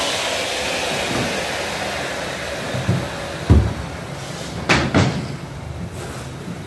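Electric hand router spinning down after cutting, its whine fading over the first couple of seconds. About three and a half seconds in comes a dull thud as it is set down, then a second later two sharp knocks.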